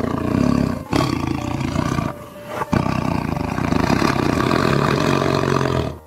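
Tiger roaring: three long roars in a row, the last lasting about three seconds.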